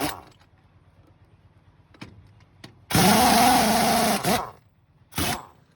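A power tool running in two bursts: a long one about three seconds in whose pitch rises and falls, then a short one near the end.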